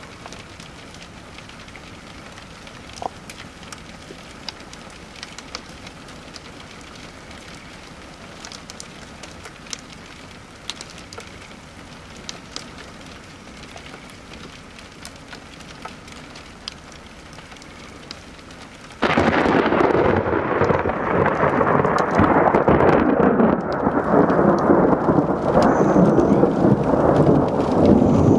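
Steady patter of precipitation with scattered light ticks. About two-thirds of the way in comes a sudden, loud clap of thunder, which carries on as a heavy rumble.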